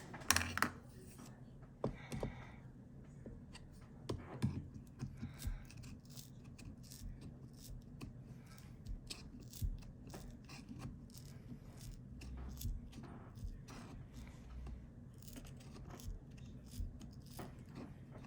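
Small hand tools working on the internals of a 2017 MacBook Pro: irregular clicks, taps and short scraping strokes over a steady low hum.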